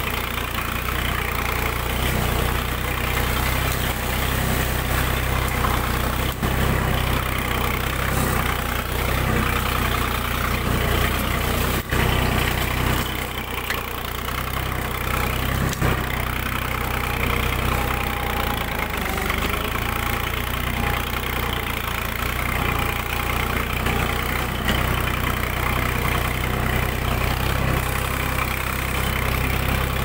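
Tractor diesel engine running steadily while pulling a plough through soil.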